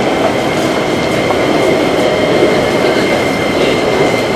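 Steady din of a busy railway platform, with a JR Kyushu 813 series electric train standing alongside and a thin steady high tone running through it.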